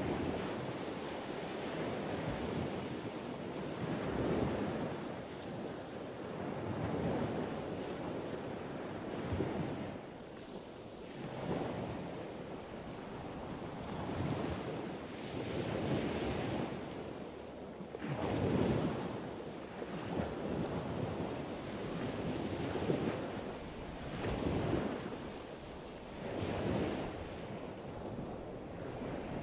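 Seaside wind and water: wind on the microphone with water lapping below the wharf, swelling and easing in surges every two to three seconds.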